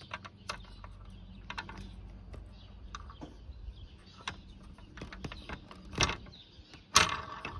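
Small clicks and taps of a scale-model bus's metal steering wheel and column being handled and fitted against its plastic floor plate, with two louder knocks about six and seven seconds in.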